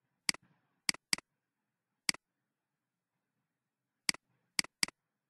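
Computer mouse button clicking: seven sharp clicks in irregular groups, three within the first second or so, one about two seconds in, and three more in quick succession about four seconds in.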